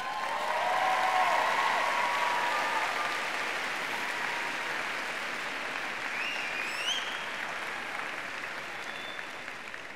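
Applause from a large audience, swelling in the first second and slowly dying away, with a few cheers called out over it.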